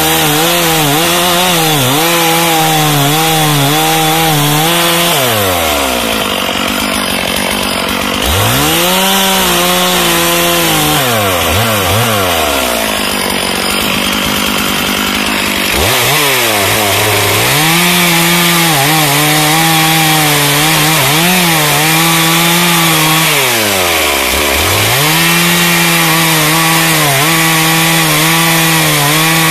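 Two-stroke chainsaw cutting into a wooden stump, the engine held at high revs through each cut and dropping back toward idle between cuts a few times before revving up again.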